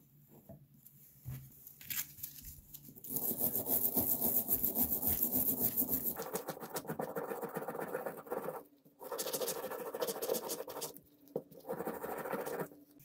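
Small metal part of a 1930 Coca-Cola pencil sharpener being scraped clean of green residue with a metal pick: rapid scratching strokes in long runs, with short pauses about nine and eleven seconds in.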